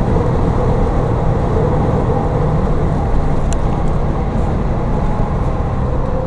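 Steady engine, wind and tyre noise inside the cabin of a Porsche 911 Turbo (997) at speed on a straight, its twin-turbo flat-six running under steady load, with a faint steady tone above the noise.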